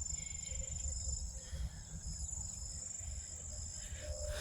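Insects singing outdoors, one steady high-pitched tone that does not change, over a low rumble.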